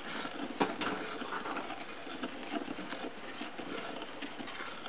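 A silicone spatula stirring brown sugar into hot water in a small bowl: light, continuous swishing and scraping against the bowl, with a sharper tap about half a second in. The sugar is being dissolved.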